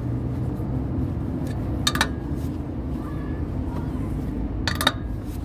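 Metallic clinks of a socket and extension bar against the lug nuts of a steel wheel: a quick pair about two seconds in and a short cluster near the end, over a steady low hum.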